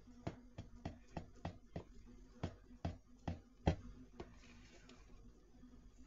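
Spoon stirring cake batter in a bowl, clicking against the bowl's side about three times a second in a quick run, then going quiet about four seconds in.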